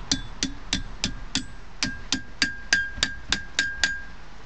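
Blacksmith's hand hammer striking hot steel on an anvil, about three blows a second, each leaving a short metallic ring. The blows pause briefly a little over a second in, then resume with a longer ring and stop shortly before the end.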